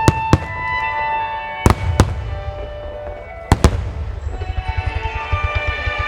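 Aerial fireworks bursting with four sharp bangs in the first four seconds, over music played through loudspeakers. A fast run of smaller pops follows in the last two seconds.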